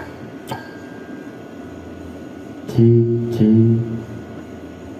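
Test sound played through a small audio mixer and its speakers: a few sharp taps, and about three seconds in a loud low pitched note held for just over a second with a brief break in the middle.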